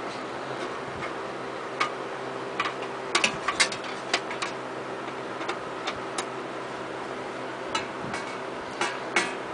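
Irregular clicks and taps of metal parts being handled inside the sheet-metal housing of a Windsor C-14 box fan during reassembly, with a quick cluster about three seconds in and more near the end, over a steady low hum.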